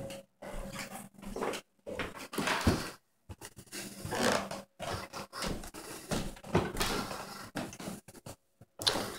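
Footsteps climbing a carpeted wooden staircase: a run of uneven thuds and scuffs, one or two a second, with short gaps between.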